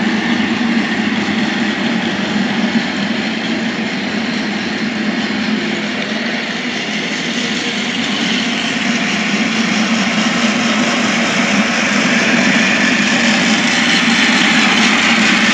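Electric cylinder (reel) lawn mower running: steady whirring of the electric motor and spinning cutting cylinder as it is pushed over grass, a little louder near the end.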